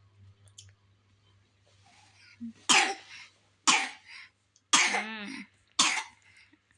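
A sick young child with a cough coughing four times, about a second apart, each cough starting sharply.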